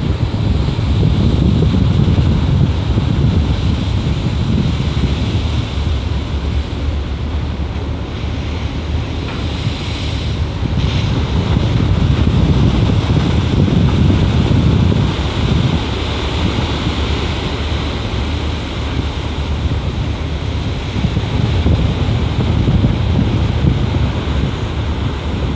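Wind buffeting the microphone over the rush of the bow wave and breaking sea along a container ship's hull in rough seas. The noise is loud and steady, with a deep rumble, swelling and easing about every ten seconds.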